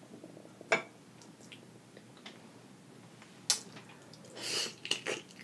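Close-up eating sounds: a few sharp mouth clicks, then a short wet smack and chewing about four seconds in, as a shrimp dipped in herb butter goes into the mouth.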